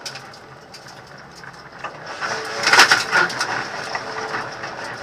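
Rally car's engine running, heard from inside the stripped cabin, with gravel crunching under the tyres and stones rattling against the car. The rattle swells to a loud burst a little after halfway through.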